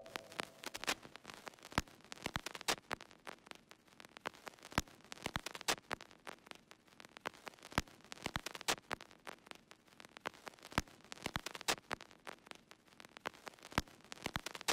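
Old-film crackle effect: irregular pops and clicks over a faint hiss of static.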